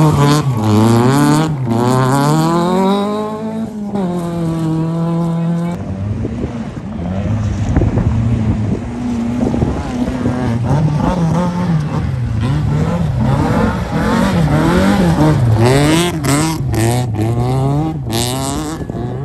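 Rally car engine revving hard on gravel, its pitch climbing and dropping through gear changes, then rising and falling quickly again and again as the driver works the throttle through the slalom. A few sharp noisy crackles come near the end.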